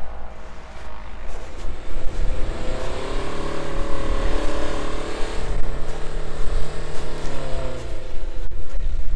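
Suzuki Jimny 1.3's four-cylinder petrol engine revving up under load as it climbs through deep snow: the revs rise about two seconds in, hold high for several seconds, then drop back near the end. A steady low rumble runs underneath.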